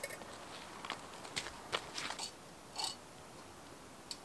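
Footsteps crunching on a stony lakeshore, with a few clicks and knocks from gear being handled: about half a dozen short, irregular crunches in the first three seconds, then one more near the end.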